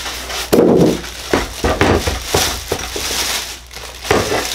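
Plastic bag crinkling and rustling as a tool is unwrapped, with a thump about half a second in as foam packing and the tool are handled.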